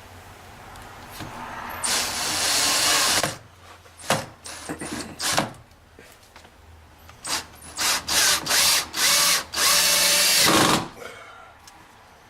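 Power drill driving a hinge screw into a stripped screw hole that has been plugged with a glued wooden skewer, with the screw taking hold. It starts with a run of about a second and a half, then a few short blips, then a string of short trigger pulses ending in a longer run.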